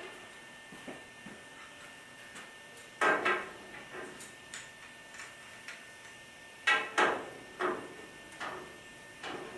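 Sharp knocks and clacks from tools working on gas piping. There are two loud double knocks, about 3 and 7 seconds in, with lighter taps between them and after.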